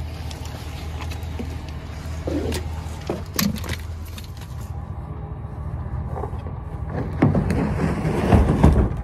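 Pickup truck engine idling steadily, with clicks and rattles of fishing gear being handled. It fades out after about four seconds. Near the end come louder knocks and scraping as a plastic kayak is slid onto the truck's tailgate.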